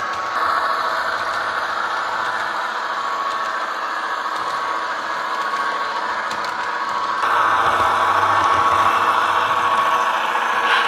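Diesel engine sound played by the Tsunami2 sound decoder through the small speaker of an HO scale brass Illinois Central Green Diamond model, running steadily as the train rolls along the track. It grows louder about seven seconds in as the power car comes close.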